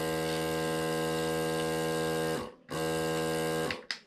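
A small 12-volt mini airbrush compressor runs with a steady electric hum. It is switched off about two and a half seconds in and winds down, runs again for about a second, then stops near the end with a click of its switch.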